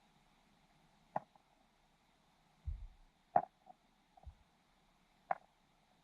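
Knocks picked up by a submerged camera: three sharp clicks about two seconds apart, with two short dull thumps between them.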